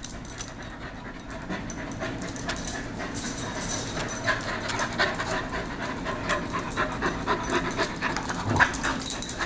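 A Carolina Dog and a collie play-fighting, panting fast and hard, with a run of short clicks and scuffles as they grab at each other.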